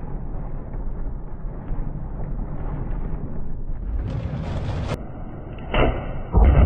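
Close lightning strike: a sharp crack and then a loud, deep thunderclap near the end, after several seconds of steady low rumbling noise.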